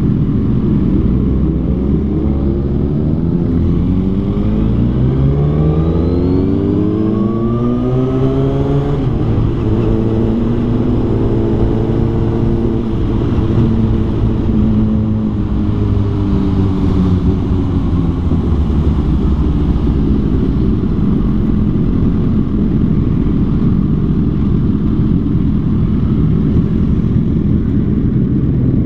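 Motorcycle engine accelerating, its pitch climbing for several seconds, then running at a steady cruise whose note slowly drops, over a constant road rumble.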